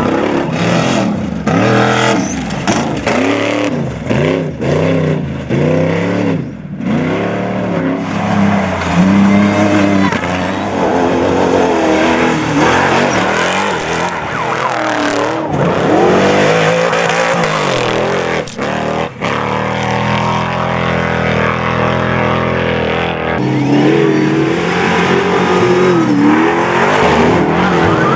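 Off-road race vehicle engines revving hard, their pitch climbing and dropping over and over as the throttle is worked: quick swoops about once a second at first, then longer, slower swells.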